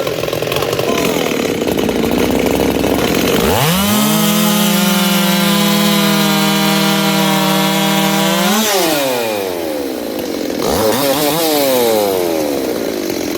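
Two-stroke race chainsaws, a ported Husqvarna 372 and a ported Stihl 440, at full throttle. Their pitch climbs sharply about three seconds in and holds high and steady for about five seconds before dropping back. A shorter rev rises and falls near the end.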